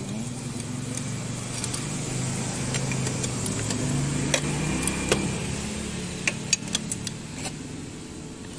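A motor vehicle's engine hums in the background, swelling towards the middle and then fading as it passes. Over it come sharp metallic clicks and clinks of a wrench on the engine's bolts, mostly in the second half.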